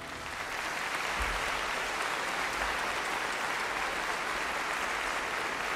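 Theatre audience applauding steadily at the end of a ballet number.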